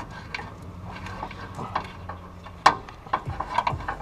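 Scattered metal clicks and clunks from hands working the steering shaft coupler onto a Jeep Cherokee steering column's shaft, with one sharper knock about two-thirds of the way in.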